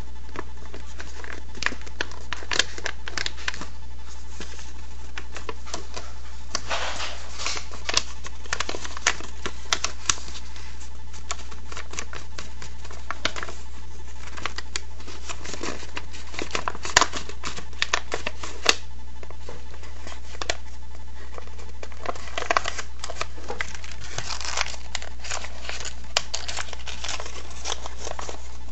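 A sheet of paper crinkling and crackling in short bursts of ticks as it is folded and creased by hand, over a steady low hum.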